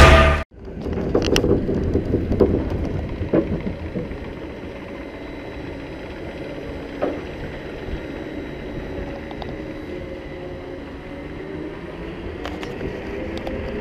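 A short burst of loud music cuts off abruptly about half a second in. Then comes the rumble of a Vekoma Bermuda Blitz roller coaster train rolling along the track toward the lift hill, heard from the front seat, with several clanks and knocks in the first few seconds. It settles into a steady mechanical hum as the train climbs the lift, with a few clicks near the end.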